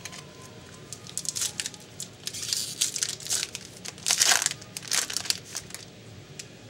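Foil wrapper of a hockey card pack crinkling and tearing as it is opened and handled, in irregular bursts, the loudest about four seconds in.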